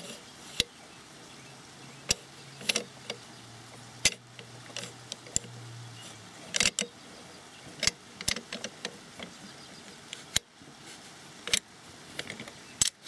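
Scattered sharp metal clicks and clacks of an M1 Carbine's steel operating slide and bolt being worked by hand on the receiver as the slide's lugs are seated in their notches.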